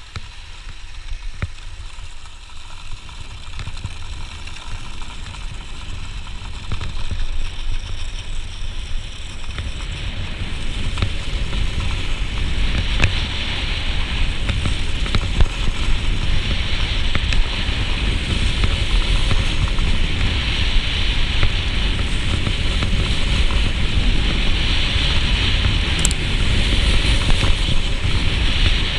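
Sitski running down groomed snow: the ski hissing and scraping over the snow, with wind rumbling on the microphone, growing steadily louder as speed builds.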